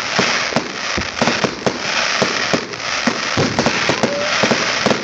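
Fireworks going off in quick, irregular succession: many sharp bangs and pops from shells launching and bursting, with a steady hiss between them.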